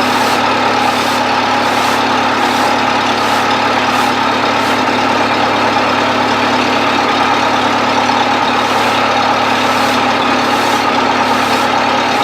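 Bobcat 610 skid steer's carbureted gas four-cylinder engine idling steadily while it warms up after a cold start.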